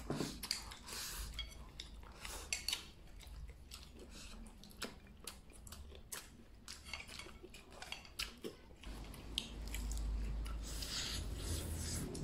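Someone eating stir-fried duck: chopsticks clicking and scraping against a bowl, with chewing and biting on the bony duck pieces.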